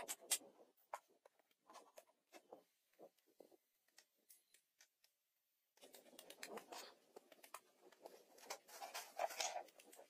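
Faint, scattered knocks of wooden logs being handled and set onto a woodpile. After a short pause, from about six seconds in, boots tread and rustle on log ladder rungs and leaf litter while climbing.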